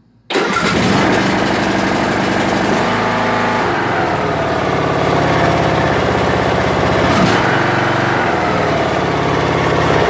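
Briggs & Stratton 19.5 hp engine on a Craftsman LT2000 riding mower, on full choke, starting at once about a third of a second in and then running steadily on its freshly replaced and tuned carburetor.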